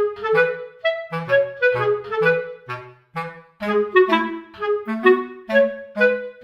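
Background music: a melody over a bass line in short, detached notes with a steady bouncing rhythm.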